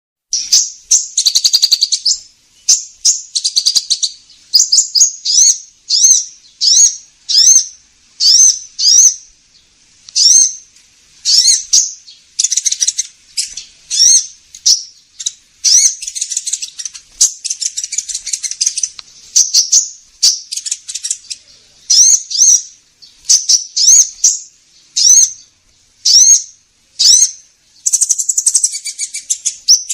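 Recorded lure call of a sunbird, the 'kolibri ninja': high, sharp upswept chirps repeated about once or twice a second, with a few denser runs of rapid chattering.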